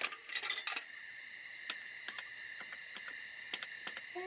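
Intro sound effect: a steady high-pitched drone with scattered irregular clicks and crackles, the clicks densest in the first second.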